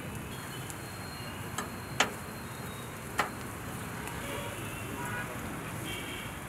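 Chicken sizzling over flames on a grill, with steady street traffic noise behind it. A few sharp clicks sound about one and a half, two and three seconds in, the one at two seconds the loudest.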